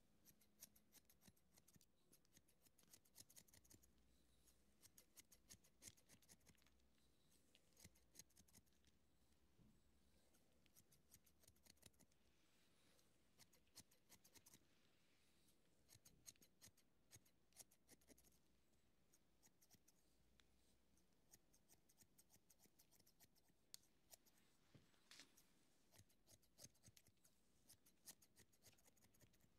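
Hair-cutting scissors snipping through hair, quiet and close, in quick runs of snips with short pauses between.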